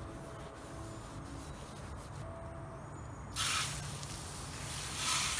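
Water from a garden hose spray nozzle hissing onto license plates laid on a wooden board, rinsing off scouring cleanser. The spray starts suddenly about three and a half seconds in, after a quieter stretch, and comes back stronger near the end.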